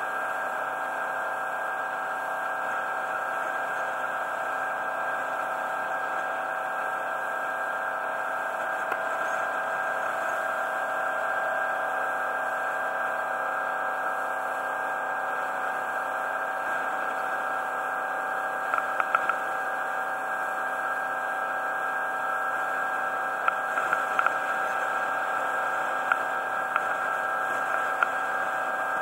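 Steady drone of a boat's motor running underway, a noisy hum with a few constant tones in it. A scattering of short sharp clicks comes in over the second half.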